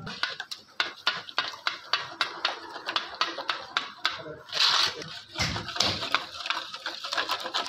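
A utensil stirring salad sauce in a bowl: quick, regular clicks against the bowl, about four a second, with a few louder swishes.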